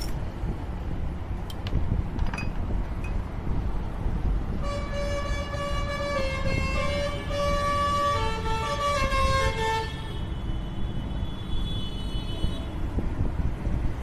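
A horn-like tune of held notes stepping up and down in pitch sounds for about five seconds in the middle, over a steady low background rumble, with a couple of faint sharp clicks in the first few seconds.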